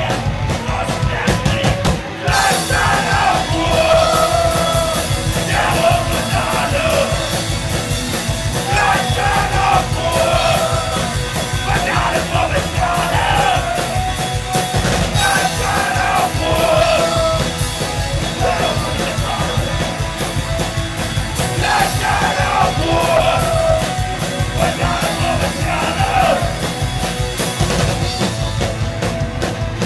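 Rock band playing live: sung and shouted vocals over electric guitars and a drum kit, loud through the club's PA. About two seconds in the band drops out for a moment, then the drums and cymbals come crashing back in.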